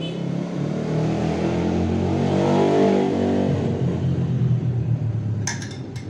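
A motor vehicle's engine nearby, rising in pitch as it speeds up to a peak about halfway through, then falling and fading. A few sharp metal clinks come near the end.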